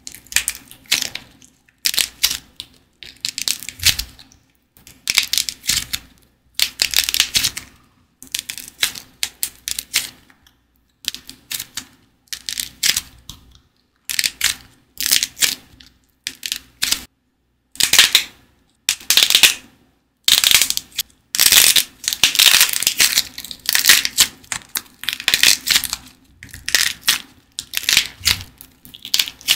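Thin shell of dried clay being squeezed and crushed between the fingers: bursts of dense, dry crackling, one cluster after another with short pauses between.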